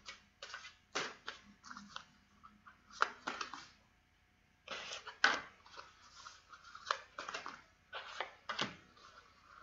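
A deck of tarot cards being shuffled and handled by hand: irregular clusters of short card flicks and slaps, with a brief pause near the middle.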